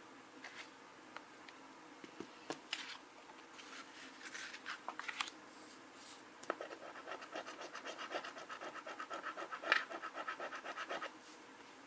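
A coin scratching the coating off a scratch-off lottery ticket. A few separate scrapes come first, then about halfway through a fast run of short strokes, about five a second, for several seconds.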